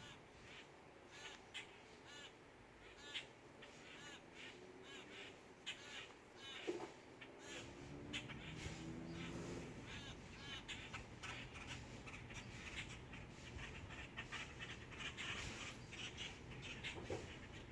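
Birds calling agitatedly, giving many short, harsh calls one after another. The calls are faint.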